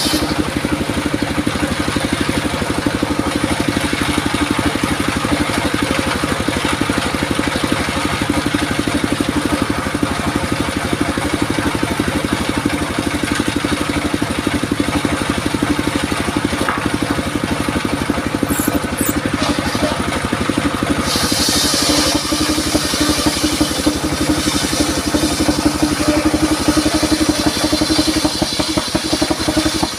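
Engine of a wood-cutting circular saw rig running steadily. About two-thirds of the way through, a higher hiss joins it.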